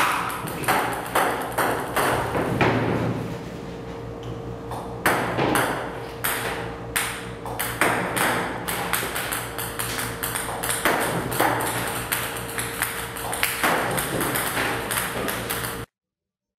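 Table-tennis balls clicking as they bounce on a ping-pong table, about two sharp clicks a second over a steady hum. It cuts off suddenly near the end.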